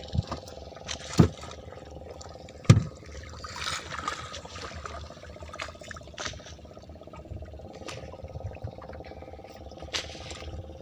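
Water splashing and sloshing as a handline-hooked diamond trevally is scooped into a landing net at the surface, with a few sharp knocks, the loudest about one and three seconds in.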